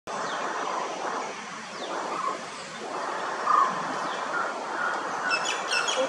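Birds calling over a steady background hum: short calls repeat through the second half, and a quick burst of sharp calls comes about five and a half seconds in, where mynas are gathering around a woodpecker's nest hole.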